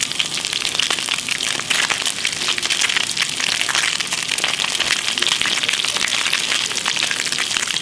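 Pieces of sea bass, scales left on the skin, frying in hot oil in a stainless steel pan: a steady, dense sizzle full of small crackles as the scales crisp.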